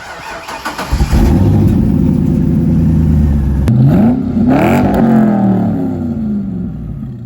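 Car engine running, then revved once about four seconds in, its pitch climbing quickly and then falling slowly back.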